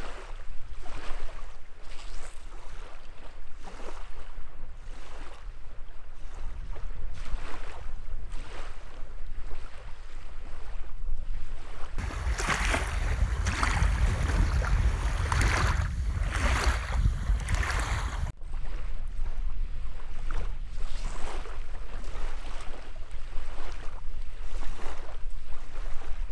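Small waves lapping and washing on a gravel lakeshore, with wind rumbling on the microphone. In the middle stretch the water sounds closer and louder.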